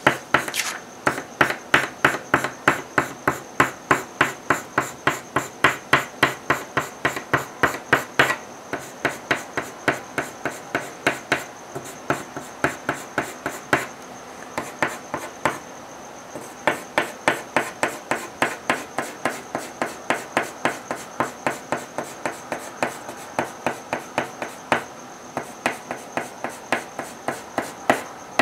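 Colouring on paper: a drawing tool scratching in quick, even back-and-forth shading strokes, about three a second, with a couple of short pauses midway.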